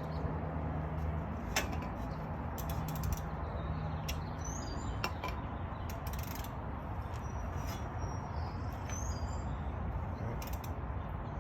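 Scattered light metallic clicks and taps of a socket and wrench being fitted onto a wheel hub bolt, over a steady background hum.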